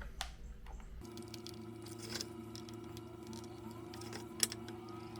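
Small clicks and taps of model railroad spikes being pushed into a wooden support to hold phosphor bronze wipers, with one sharper click about four and a half seconds in. A steady low hum starts about a second in.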